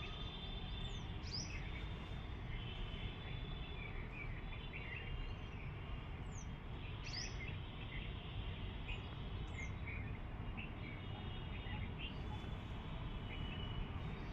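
Outdoor ambience: birds chirping now and then, with several quick downward-sweeping calls, over a steady low background rumble.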